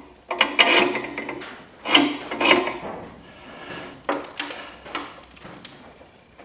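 Irregular metal clunks, rubbing and scraping from a small-block Chevy 350 engine being turned over and handled on an engine stand. Two longer clattering, scraping stretches come in the first three seconds, followed by a few sharp knocks.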